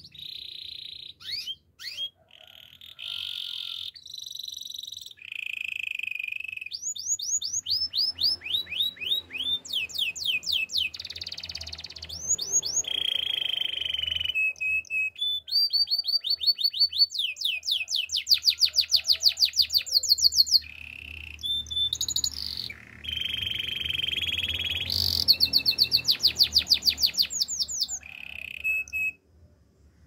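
A domestic canary singing a long, continuous song of changing phrases: fast trills of quickly repeated sliding notes alternate with held whistled notes, and the song breaks off near the end.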